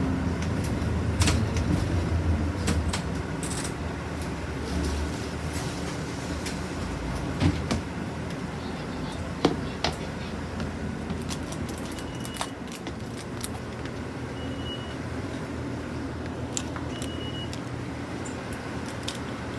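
Running sound of a new city bus heard from inside: a low engine drone and road noise, heavier in the first few seconds, then steadier. Scattered interior rattles and clicks run through it, and three short high beeps come in the second half.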